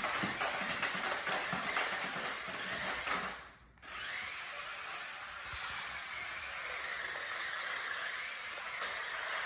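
Small electric motors of a toy remote-control car whining, with a wavering pitch as it speeds up and slows. Sharp knocks and clatter in the first three seconds, and the sound cuts out briefly about three and a half seconds in.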